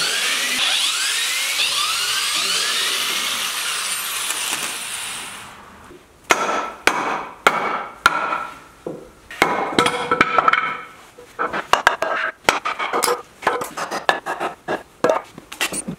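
Corded electric drill running on screws in a wooden frame, with a high whine that rises again and again, stopping about six seconds in. Then a hammer knocks on the pine boards of the frame in irregular strikes, knocking the frame apart.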